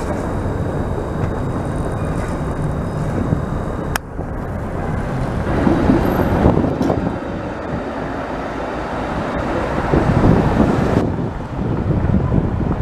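Downtown street traffic: streetcars and cars passing on a tram-tracked street, with wind buffeting the microphone. The noise swells twice as vehicles go by close, once around the middle and again later on.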